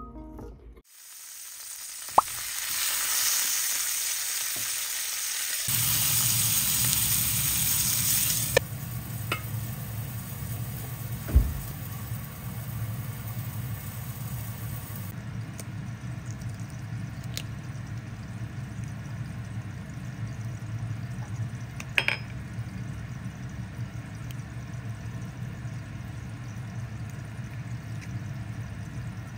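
Food sizzling in a frying pan, a loud hiss that builds for a few seconds and stops suddenly about eight seconds in. After it comes a steady low hum with a few light clicks of dishes and utensils and one dull knock.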